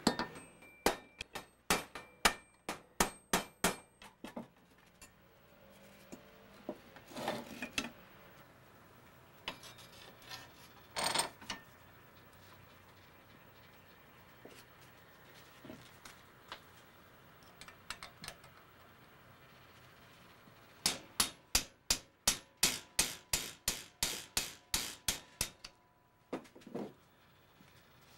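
Sharp hammer blows on metal, a hammer tapping a punch against the riveted handle of a Martindale No. 204 machete. About eight even blows come at roughly two a second near the start, then a few scattered knocks and a scrape, then a quicker run of about fifteen blows near the end.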